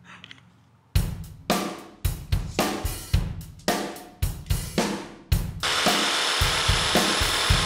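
A drum-kit beat with hi-hat and cymbal starts about a second in, after a quiet opening. About two-thirds of the way through, a cordless jigsaw starts cutting through a wooden table leg and runs steadily under the beat.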